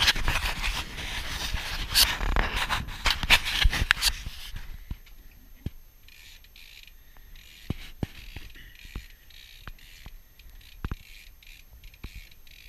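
Handling noise from an action camera: a hand rubbing and scraping against the camera body, with clicks, for about the first four and a half seconds while it is held and fixed in place. After that there is only faint hiss and a few scattered soft clicks.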